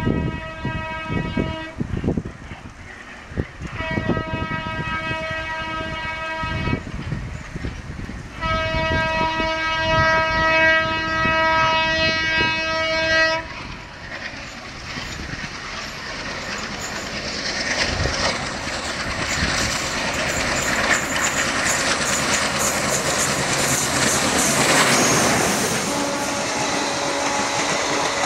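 WDM-3D diesel locomotive's horn sounding three blasts, the last and longest about five seconds, over the clatter of wheels on rail joints. The train then passes with a swelling rush of wheel and rail noise, and a fainter steady horn tone comes in near the end.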